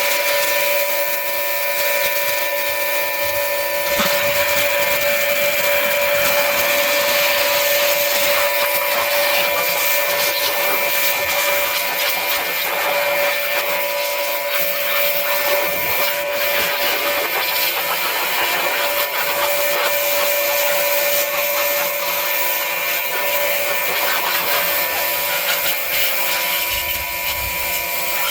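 Pressure washer running steadily with a constant whine, its water jet hissing as it sprays caked-on dirt and grime off a dirt bike.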